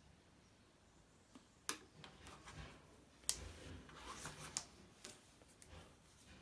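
Sharp clicks and soft rustling of insulation tape being handled and wrapped around a road-bike handlebar, the loudest click about three seconds in.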